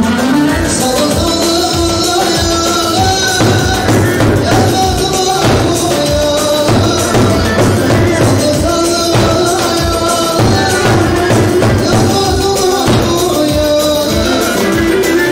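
Loud halay folk dance music: a davul bass drum beaten in a steady dance rhythm under a held, wavering melody line.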